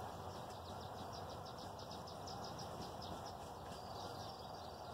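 Small songbirds chirping in quick runs of high notes, thickest in the middle and again near the end, over a steady low hiss.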